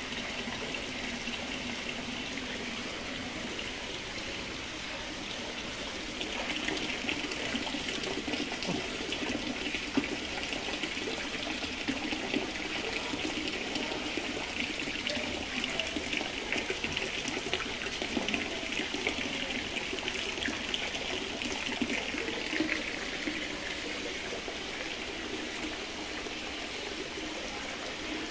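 Water splashing and trickling in a steady wash, louder from about six seconds in and easing again a few seconds before the end.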